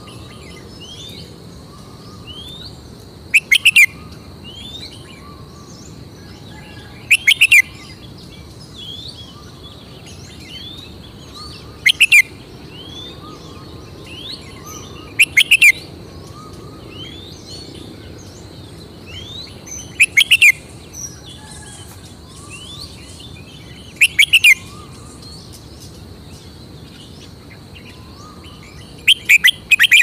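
Red-whiskered bulbul singing short, loud phrases of quick notes, seven times about every four seconds, with fainter rising chirps in between.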